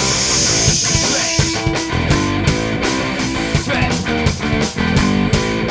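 Hard rock song: guitar playing over a steady drum-kit beat, with a bright hissing wash over the first second and a half.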